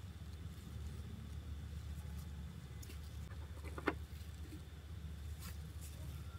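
Steady low background hum, with a few faint light clicks of small plastic toy pieces being set down on a hard surface, the clearest about four seconds in.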